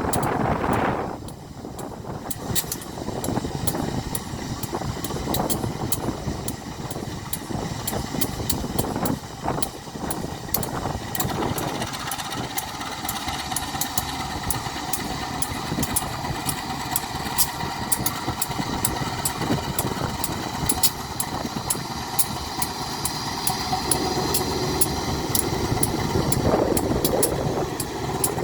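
Diesel locomotive engine running steadily, with frequent sharp clicks throughout and a swell in level near the end.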